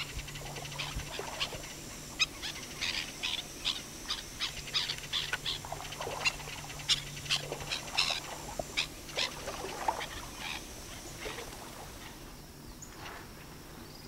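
Northern jacana calling: a rapid series of short, sharp call notes, about three a second, trailing off near the end.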